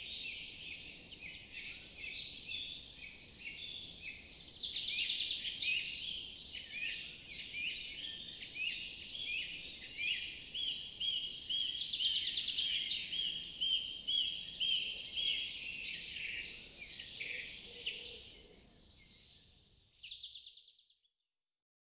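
A dense chorus of many songbirds, with overlapping chirps, whistles and rapid trills. It fades out about nineteen seconds in, a last short call follows, and then the sound cuts off to silence.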